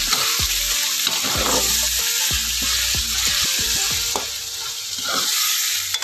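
Corned beef and sliced cheese dogs sizzling in hot oil in a pan, with a metal spatula scraping and knocking against the pan as the mixture is stirred.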